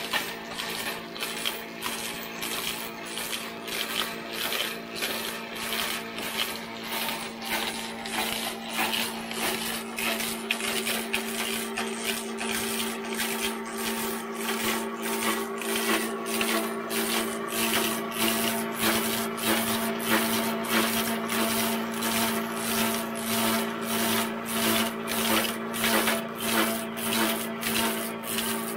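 Self-feeding log lathe running: a steady motor and belt-drive hum while the cutter head shaves the turning log, with an even beat about one and a half times a second. The hum grows a little stronger about halfway through.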